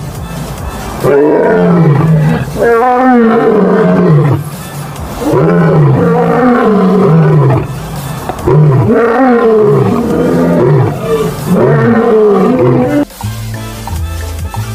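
Recorded lion roaring: a series of deep calls, each falling in pitch, in three bouts with short gaps. Near the end it gives way to music with a steady beat.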